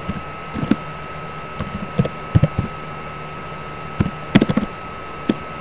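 Computer keyboard being typed on: short, irregular clusters of key clicks, over a steady faint high-pitched whine.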